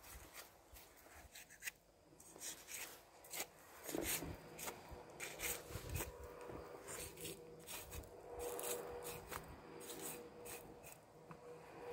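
A butcher's knife cutting a pig's shoulder away from the carcass: faint, irregular short slicing and scraping strokes through meat and fat.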